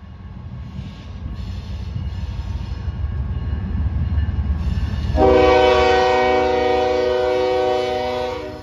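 Freight train approaching with a low rumble that grows louder. About five seconds in, the locomotive's air horn sounds one long, loud chord of several notes, which fades out just before the end.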